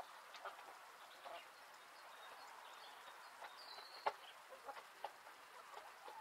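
Hens clucking faintly and sparsely, with a brief high chirp and then a single sharp click about four seconds in.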